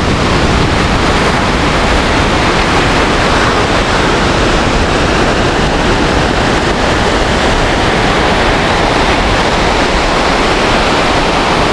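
Ocean surf breaking on a sandy beach: a loud, steady wash of noise, with wind on the microphone.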